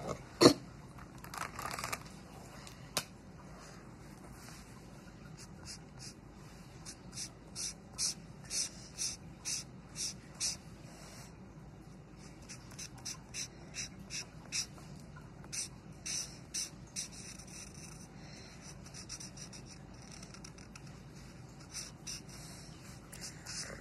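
Felt-tip marker colouring on paper: short scratchy back-and-forth strokes, about two a second, running in bursts with brief pauses. A sharp click about half a second in.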